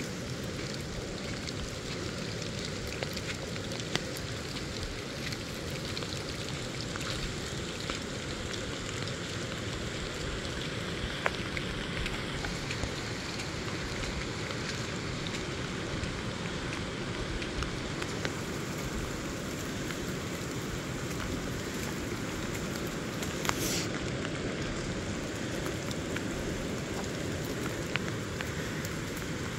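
Steady rushing water noise from the South Fork American River in major flood, with a few sharp ticks through it, one louder about two-thirds of the way in.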